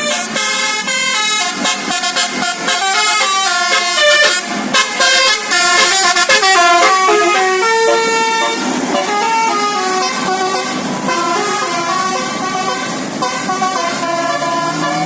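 Tour bus's basuri multi-tone air horn playing a tune in stepped notes. A rising siren-like glide starts near the end.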